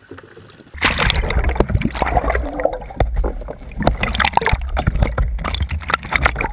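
Water sloshing and gurgling over a half-submerged action camera's waterproof housing beside a kayak hull. It is a dense, muffled rumble full of small knocks and crackles that starts abruptly about a second in, after a quiet moment with a thin steady high tone.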